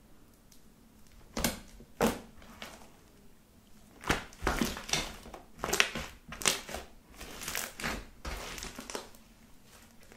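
Hands squeezing and stretching a thick body-lotion slime: sharp sticky pops and crackles as it is pressed and pulled. Two come a little over a second in, then after a short lull a dense run of them follows from about four seconds to about nine.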